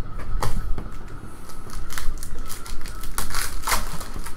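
Foil trading-card pack being handled and torn open, its wrapper crinkling and crackling in short snaps, loudest about three seconds in.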